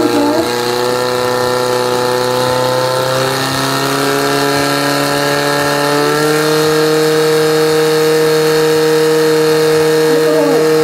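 Portable fire pump's engine running steadily at high revs while it pumps water out of the tank through the hoses to the targets. Its pitch shifts slightly a few seconds in and settles a little higher about six seconds in.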